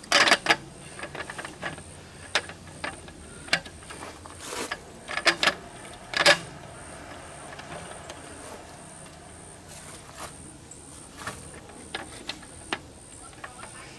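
Metal slats of a roll-up camp tabletop clacking and rattling against its folding metal rod frame as the top is fitted and pressed into place: a string of sharp clacks and clicks, loudest at the start and about six seconds in, with lighter ticks between.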